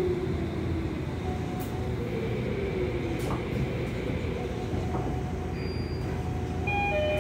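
Cabin noise of a Tokyo Metro 17000 series train with a Hitachi SiC-VVVF inverter braking into a station: the inverter whine falls in pitch at the start, then steady rumbling as the train slows to a stop. Near the end a chime of repeated beeps begins.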